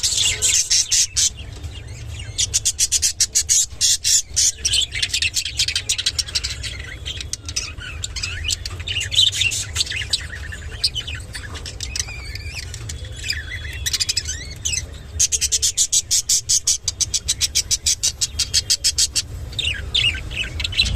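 Budgerigar chirping and chattering, with runs of rapid sharp clicks and a few short chirps, over a steady low hum.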